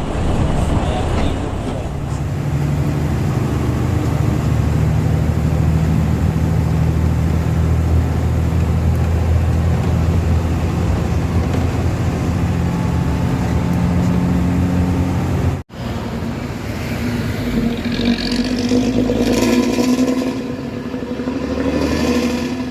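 Intercity bus engine running through a modified 'ngorok' (snoring, growling) exhaust, a steady low drone. About two-thirds of the way through it cuts off abruptly, then resumes with a higher-pitched exhaust note.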